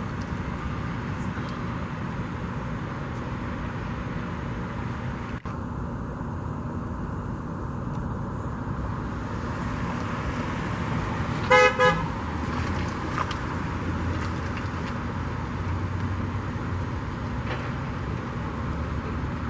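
Steady street traffic noise, with a vehicle horn tooting twice in quick succession about halfway through.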